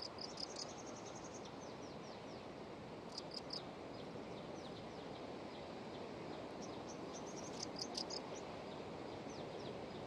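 Steady distant rush of ocean surf breaking on a rocky shore. Over it, high insect chirping comes in short rapid bursts: near the start, about three seconds in, and again about seven to eight seconds in. Thin falling chirps trail after each burst.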